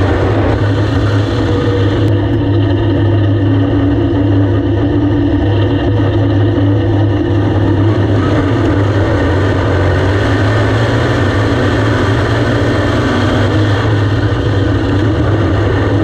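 Dirt modified race car engine running at steady revs, heard loud from the in-car camera in the cockpit, its pitch holding level throughout.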